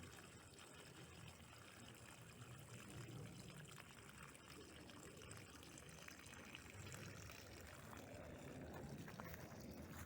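Faint, steady pour of water from a pump pumping out a well, run to test the well's inflow.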